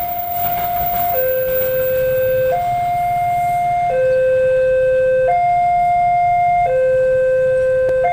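Electronic two-tone warning alarm, switching between a high and a low note about every second and a half, over a low rumble.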